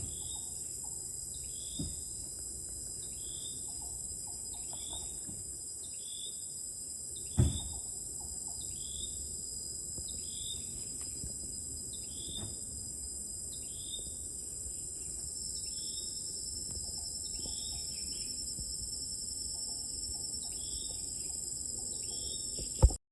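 Tropical forest insects droning steadily and high, with a short falling call repeating a little more than once a second, and one sharp knock about seven seconds in.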